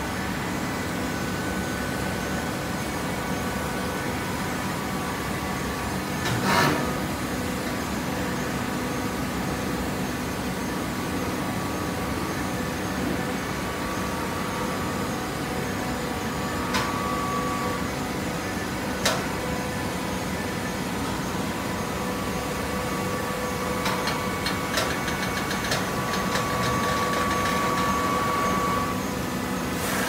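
Horizontal hydraulic baler running: a steady hum of its hydraulic power unit with metal clanks, one louder bang about six seconds in. Near the end a stretch of rattling and a higher steady tone join the hum.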